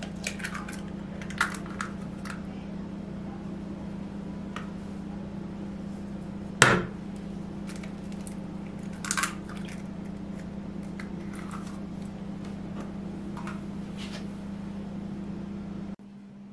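Eggs being cracked on the rim of a glass bowl. One sharp crack of shell on glass comes about six and a half seconds in, with smaller clicks and crackles of shell being pulled apart and egg dropping into the bowl, over a steady low hum.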